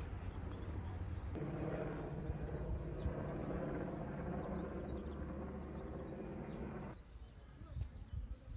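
A steady, low mechanical hum, such as a motor or engine running, in open air. It stops abruptly about seven seconds in, leaving quieter background sound with a few faint ticks.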